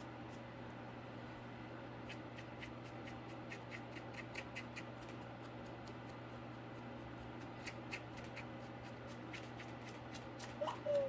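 Faint scratchy ticks of a paintbrush dry-brushing paint over a cardboard surface, coming in small clusters, over a steady low hum. A brief squeak near the end is the loudest sound.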